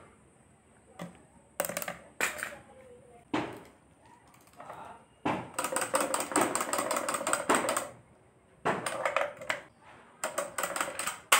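Key-wound mechanical toy cow running on a plastic stool: its clockwork clattering in bursts of rapid clicks, the longest lasting about two and a half seconds.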